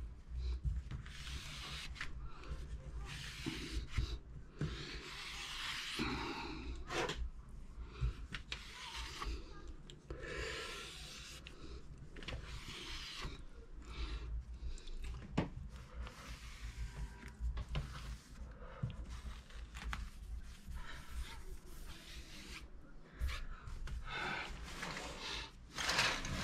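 A cloth rubbing and wiping along a frame in irregular strokes, with swishes and an occasional knock.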